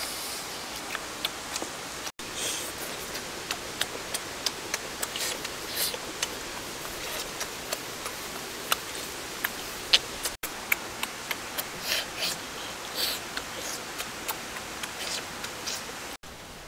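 A person chewing grilled pig intestine with the mouth open: irregular wet clicks and short smacking bursts over a steady hiss. The sound drops out briefly three times, at edit cuts.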